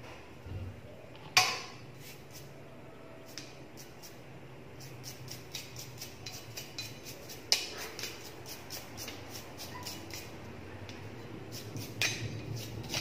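Small metal parts of a flat iron being handled: a sharp metallic clink about a second in, another around the middle and one near the end, with lighter ticks and taps in between, over a faint steady low hum.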